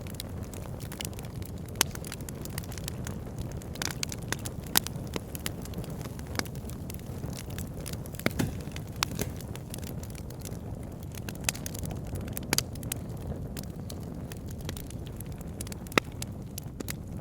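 Fire in a fireplace crackling: irregular sharp pops and snaps, a few louder ones scattered through, over a steady low rush of the flames.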